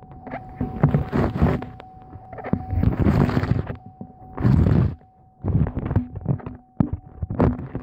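Exhaust of a 2003 Chevy Tahoe Z71's 5.3-litre V8 through a Flowmaster Super 44 muffler, heard at the tailpipe as the engine is revved in about five short blips, each rising and dropping back within a second or so.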